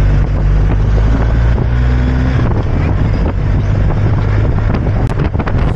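Motorcycle engine running steadily as the bike moves off and rides, with wind rushing over the helmet-mounted camera's microphone.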